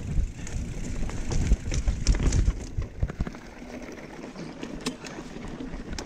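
Mountain bike riding over a rough dirt and rock trail, heard from the handlebars. Wind rumbles on the microphone and the bike rattles and knocks over the bumps. It gets quieter about halfway through, leaving a softer rumble and a few ticks.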